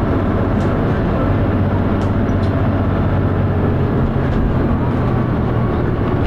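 Dennis Arrow double-decker bus engine running steadily under way, a loud, even drone with a deep hum, the engine thrash of this bus.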